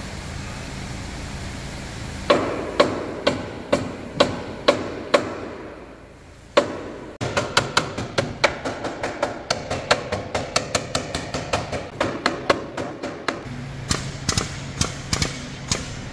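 Hammer blows on steel, struck on the damaged front rail while it is held under pull on the straightening bench. The first blows come about two a second, then a single heavier one, then a faster run of about four lighter ones a second, each with a short metallic ring.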